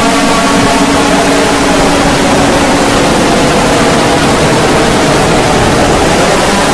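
Loud, harsh static-like noise of a fan-made emergency alert alarm, with faint steady tones beneath it that fade out over the first couple of seconds.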